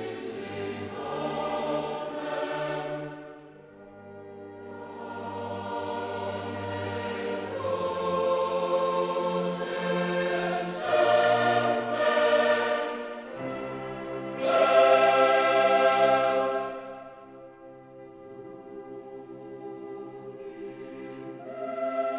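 Choral and orchestral classical music: a choir sings sustained chords over an orchestra, swelling and fading in long phrases.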